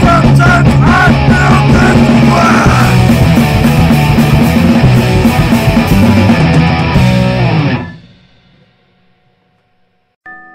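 Loud, distorted guitar-driven punk rock that cuts off about three-quarters of the way through, followed by about two seconds of near silence. Near the end a steady, droning electronic tone begins.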